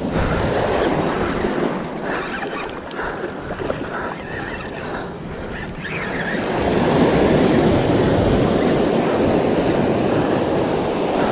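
Surf washing up the beach. The rush of the water swells about six seconds in and stays loud.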